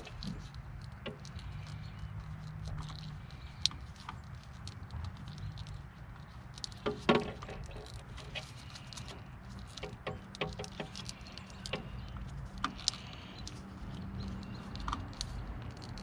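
Wiring and corrugated plastic wire loom being handled and fed into place by gloved hands: scattered small clicks, rustles and rattles, with a louder cluster of clicks about seven seconds in, over a low steady hum.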